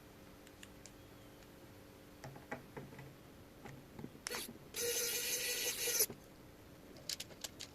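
Light clicks of small parts and a tool, then, a little past halfway, a small electric motor whirs at a steady pitch for just over a second as an M2 screw is driven into the printed plastic motor mount.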